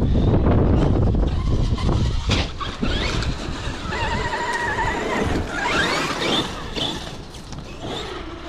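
Traxxas X-Maxx RC monster truck's brushless electric motor whining, its pitch rising and falling with the throttle and held steady for about a second midway. Wind buffets the microphone loudly in the first two seconds.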